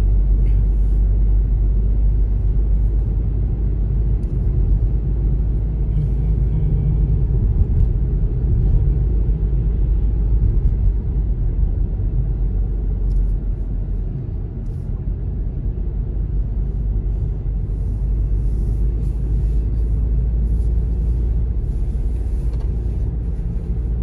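Steady low road and engine rumble of a moving car, heard from inside the cabin, dipping slightly in level about halfway through.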